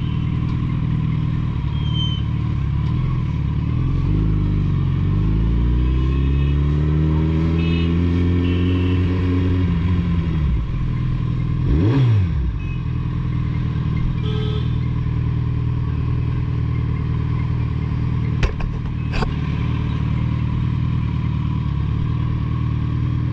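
Suzuki Hayabusa inline-four running through a Two Brothers Racing aftermarket exhaust while riding. The engine pitch climbs steadily as it accelerates from about four seconds in, falls away around ten seconds, dips and recovers sharply just after, then holds steady. Two short clicks come near the end.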